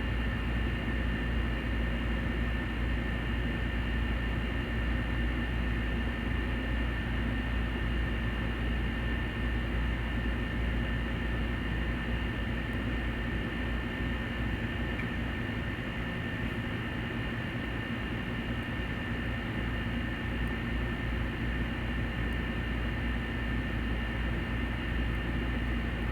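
Steady whir and hiss of a fan-driven bench machine, with a low hum underneath and two faint, steady high whines; it holds unchanged throughout.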